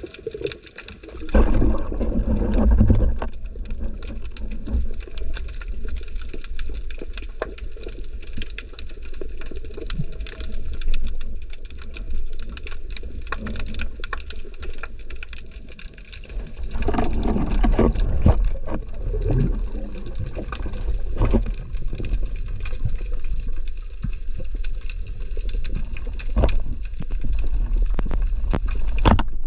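Underwater sound through a diver's camera: water moving and bubbling, with louder surges twice, over a steady crackle of fine clicks.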